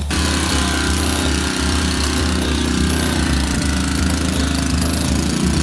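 Small engine of a portable engine-driven power unit running steadily at a constant speed, with a harsh rattling hiss over a low, pulsing hum; it starts abruptly at the beginning.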